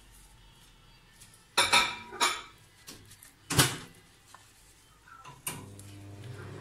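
Metal knife clinking and clattering against a ceramic plate as pork ribs are shifted on it: a few sharp knocks, the loudest about two seconds in and again about three and a half seconds in.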